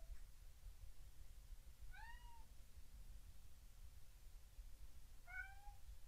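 A domestic cat meowing faintly twice, about three seconds apart, each call a short meow that rises and then falls in pitch. She is calling to be fed.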